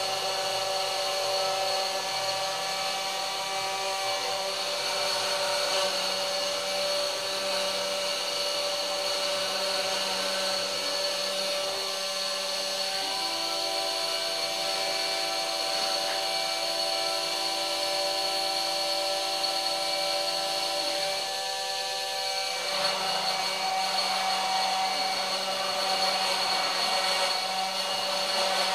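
Homemade CNC router running: the spindle motor spins steadily while the bit cuts an outline into fibreboard, over the whine of the stepper motors. The whine changes pitch about 13 seconds in and again near 23 seconds as the machine changes its moves.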